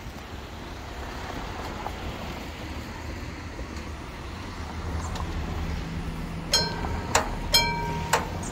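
Steady road traffic noise, then about six and a half seconds in the level crossing's warning bell starts ringing in sharp, evenly repeated strikes, about two a second, signalling that the crossing is closing for an approaching train.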